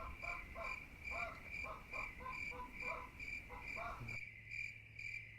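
Cricket chirping steadily in short, even, high chirps, about three a second. For the first four seconds a faster series of lower pulsed calls runs beneath it, then stops abruptly.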